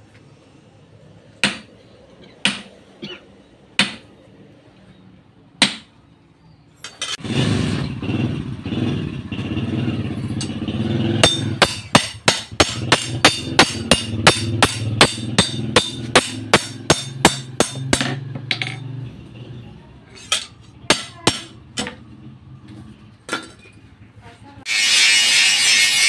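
Hand hammer striking a sugarcane-cutting blade on a small steel anvil. First come scattered single blows, then a fast even run of about three blows a second, then scattered blows again. A low steady hum runs under the middle part, and near the end a loud steady noise cuts in.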